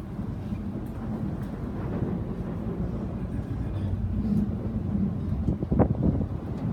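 Steady rumble of a moving commuter train heard from inside the passenger car. Near the end there is a brief, sharper, higher-pitched sound over the rumble.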